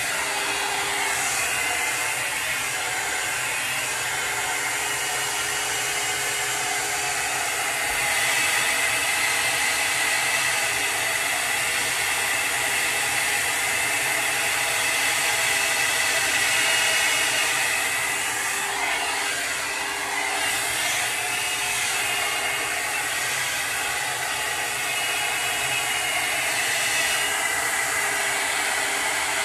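Steady whirring noise of a running blower or small motor, with a faint hum.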